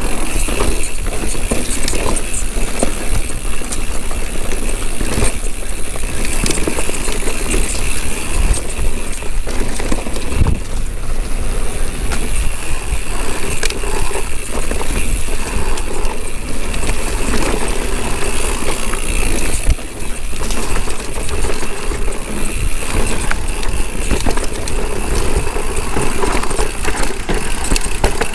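Mountain bike descending a rough downhill trail at speed: tyres, chain and frame rattling over rocks and roots, with a continuous low rumble of wind on the camera microphone.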